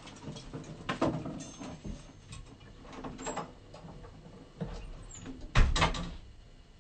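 Scattered knocks and clicks of someone leaving the room, ending in a loud thump of a door being shut about five and a half seconds in.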